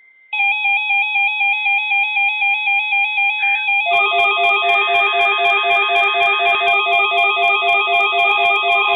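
Weather alert radio receivers sounding their alarms: an electronic warbling beep that alternates between pitches starts abruptly about a third of a second in. About four seconds in, a second alarm joins with a faster, pulsing beep of about four to five beats a second.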